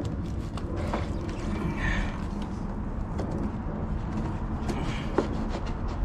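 Small clicks, taps and light scrapes of parts being handled and fitted by hand on top of a V8 engine, over a steady low background rumble.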